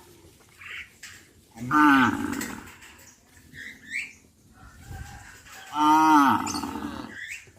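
Cattle mooing: two loud moos about four seconds apart, each lasting about a second and falling in pitch.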